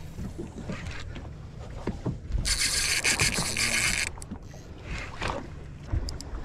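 Spinning reel's drag buzzing with a rapid rasping click as a hooked fish pulls line off, a burst starting about two and a half seconds in and lasting about a second and a half. Small ticks of the reel and a low rumble sit underneath.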